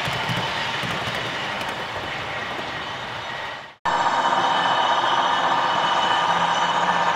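HO scale model Amtrak passenger train running along the track, its wheels and motor making a steady rolling hum. The sound cuts out for a moment a little before halfway, then a steadier hum with a high whine takes over from the model locomotives in the yard.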